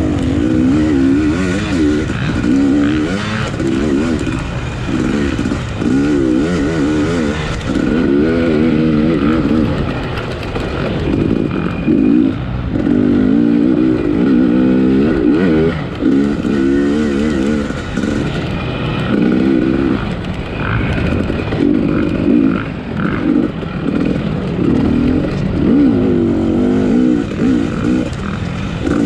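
A 250cc off-road racing motorcycle engine under hard throttle. Its pitch keeps climbing and dropping about once a second as the rider opens and closes the throttle and works through the gears.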